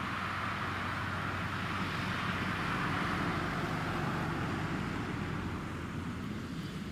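Jet engines of a Boeing 777-300 airliner passing overhead: steady engine noise that swells to its loudest about three seconds in, then eases off.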